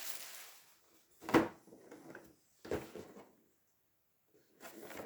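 Handling noise as plastic miniature sprues and packaging are picked up and set down: three short knocks with some rustling, the loudest about a second and a half in.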